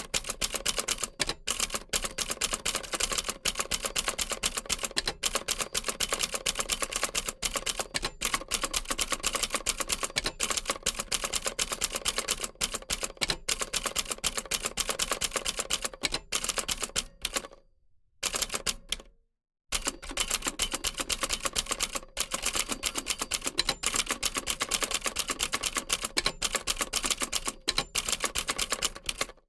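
Old typewriter typing: a fast, uneven run of sharp key strikes. The typing stops for about two seconds a little past the middle, then resumes.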